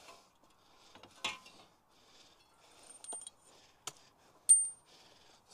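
Scattered metal clinks and knocks as the freshly removed front wheel hub bearing assembly and tools are handled, with one sharp metal clink and a short high ring about four and a half seconds in.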